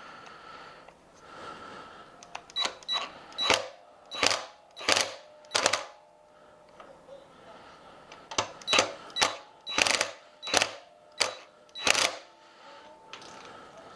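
Ratchet wrench being worked on the e-bike's axle nut during a wheelie-peg install. It comes in two runs of sharp, ringing metallic strokes, about two a second, with a pause between the runs.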